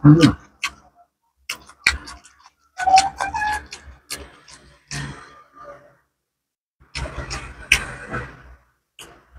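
Close-miked eating sounds of a person eating fried fish with rice and sambal by hand: wet chewing, lip smacks and tongue clicks in irregular bursts with short pauses.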